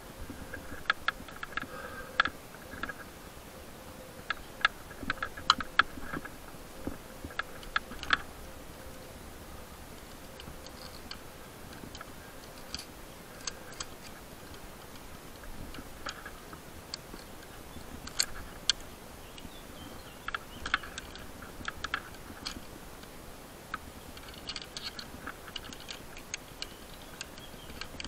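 Irregular clicks and light metallic clinks of tree-climbing gear, carabiners and rope hardware being handled and shifted. They come in scattered clusters with quieter gaps between.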